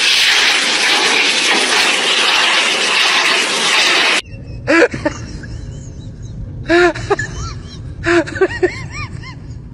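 A pet blow dryer blasting air into a French bulldog's face, a loud steady rush of air that cuts off suddenly about four seconds in. After it come a low steady hum and a few short high-pitched cries.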